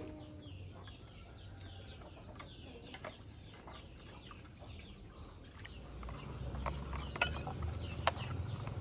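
Chickens clucking and chirping in a run of short falling calls a few times a second. Later a low rumble comes up, with a couple of sharp clicks near the end.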